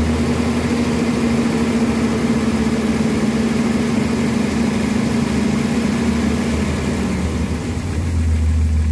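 Jeep Cherokee 4.0L inline-six running steadily at raised revs, held open by hand at the throttle, then dropping back to idle about seven seconds in. It is being run to burp air bubbles out of the freshly filled cooling system.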